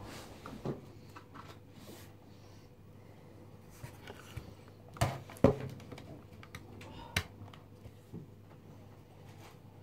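Handling noises in a small room: scattered knocks and clicks of things being moved and set down, the loudest two close together about five seconds in and another about seven seconds in.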